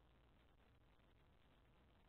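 Near silence: a faint, even hiss with nothing else in it.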